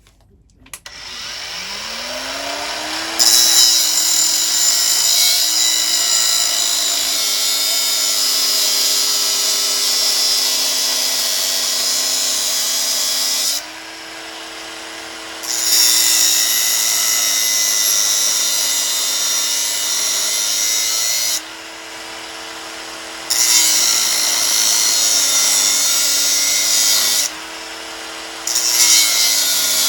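Angle grinder spinning up, then cutting into the steel sprocket welded onto a Honda TLR200's output shaft in long passes. Three times the disc is lifted briefly and the motor runs free at a higher pitch before biting in again, its pitch dropping under the load.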